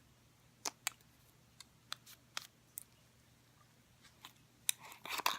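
Scattered light clicks and crinkles of bath-salt packaging being handled and opened, with a quicker run of them near the end.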